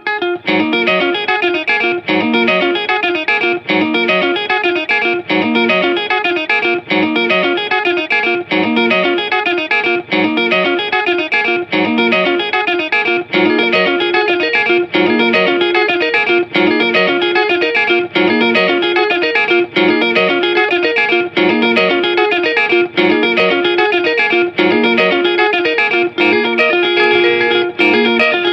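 Background music led by electric guitar with effects, with a steady beat.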